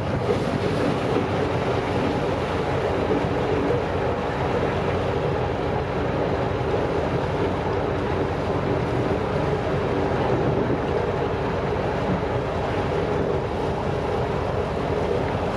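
Vaporetto water bus under way, its engine running steadily with water rushing along the hull.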